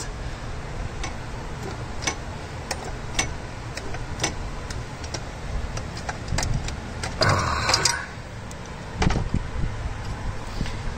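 Irregular small metal clicks and taps from pliers working on hoses and their clamps in an engine bay, with a brief scraping rustle about seven seconds in.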